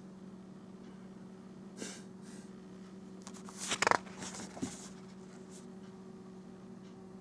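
Paper page of a spiral-bound booklet being turned by hand: a light rustle about two seconds in, then a louder swishing turn just before four seconds in, with a few smaller rustles after it as the page settles. A steady low hum runs underneath.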